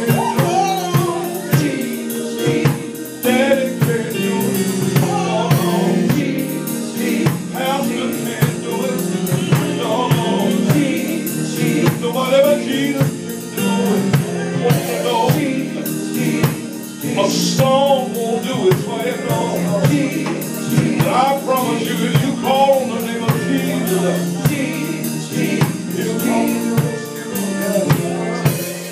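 Live gospel praise singing: several voices with microphones over sustained chords, with drums keeping a steady beat.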